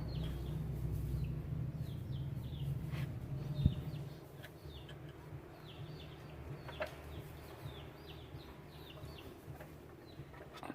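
Chickens calling with many short, high, falling chirps throughout. A low rumble fades out about four seconds in, and a single sharp knock sounds just before it stops.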